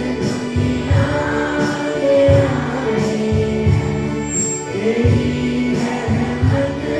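A devotional song: singing voices over instrumental backing with a repeating bass rhythm.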